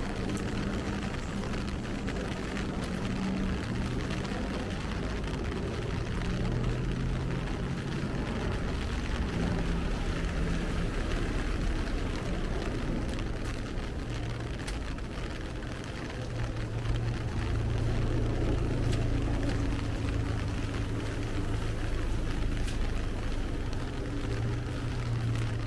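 Steady rain falling in a city street, with the low hum of passing motor-vehicle engines under it, stronger in the second half.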